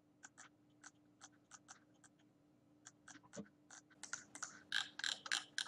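Faint computer mouse clicks: single clicks spaced out at first, then coming quickly one after another over the last second and a half or so. A faint steady hum runs underneath.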